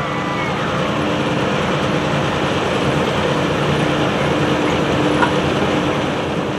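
Pulling tractor's engine running loudly and steadily.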